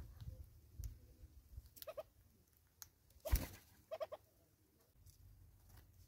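Southern red-billed hornbill at a seed pile: short clucking notes about two seconds in and again about four seconds in, with one sharp knock between them, like a bill striking the wooden stump.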